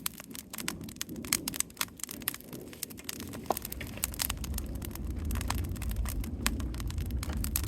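Wood fire crackling, with frequent sharp, irregular pops. A low rumble comes in about halfway through and grows louder.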